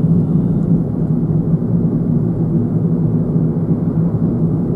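Steady low hum of a moving car heard from inside the cabin while driving along a road.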